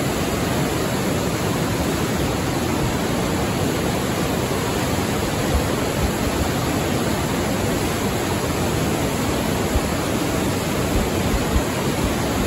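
Glacial meltwater torrent rushing through a rock gorge: a loud, steady, even roar, with a few soft low bumps in the second half.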